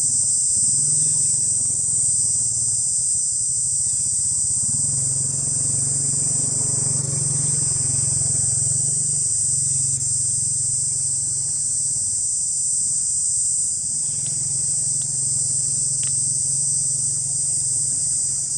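Steady, high-pitched drone of an insect chorus, several even tones held without a break. A faint low hum sits beneath it and swells for a few seconds in the middle.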